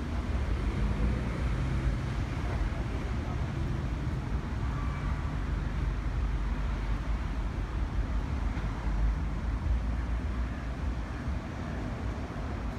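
Steady city road traffic: a continuous low rumble of car engines and tyres on a busy street.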